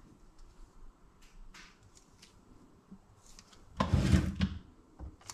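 A soft-wrapped lithium-ion battery pack handled and laid on a digital scale: light rustles and taps, then a louder knock and rustle lasting under a second about four seconds in as the pack is set down and pressed onto the scale.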